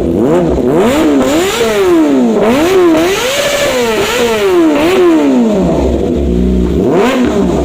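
Kawasaki ZX-25R's 249 cc inline-four, breathing through a full titanium exhaust, revved in a quick run of about seven throttle blips, each pitch rising and falling back, then dropping to idle with one more short blip near the end. The revs pick up with no throttle delay, which the riders credit to the new exhaust and air filter.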